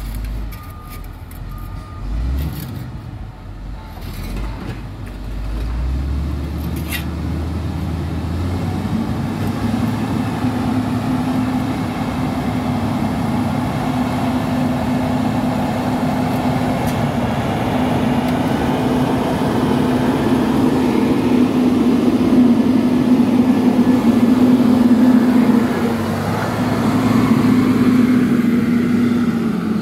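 Caterpillar 140K motor grader's diesel engine running under load as its blade pushes cold asphalt mix, growing steadily louder as the machine comes closer, with a steady engine tone from about a third of the way in. A reversing alarm beeps a few times at the very start.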